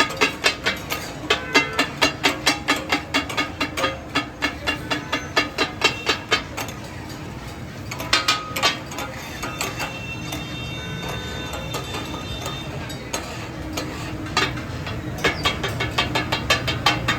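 Metal spatulas clanging rapidly and rhythmically on a flat iron tawa as katakat offal is chopped. The clatter stops about halfway through for several seconds, then starts again near the end.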